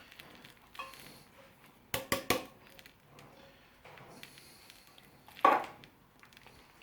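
Kitchen clatter of utensils against a dish while sweet corn is added to the pasta: a quick run of three knocks about two seconds in, then a single louder clatter about five and a half seconds in.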